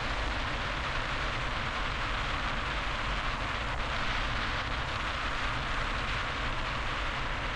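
Steady road and wind noise of a car driving at freeway speed.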